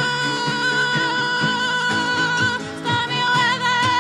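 A woman sings a song, holding one long high note for over two seconds and then a second note near the end, over a steadily plucked accompaniment.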